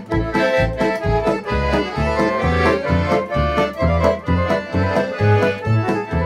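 Piano accordion playing an instrumental passage between sung verses of a Ukrainian folk song: a melody over a steady beat of bass notes and chords.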